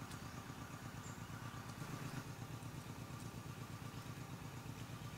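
An engine idling steadily, a low even pulsing hum with a faint thin tone above it.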